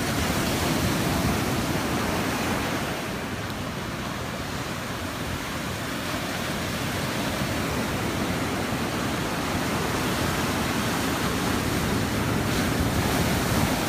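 Ocean surf breaking and washing up a sandy beach: a steady rushing noise that eases a few seconds in and then builds again.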